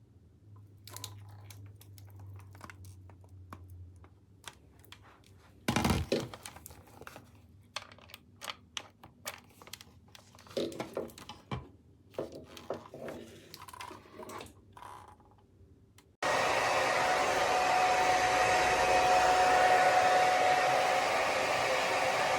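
Clicks and knocks as a hair dryer attachment is handled and fitted, then, about 16 seconds in, the Revlon Infrared 1875-watt hair dryer is switched on and runs steadily: a loud rush of air with a steady whine.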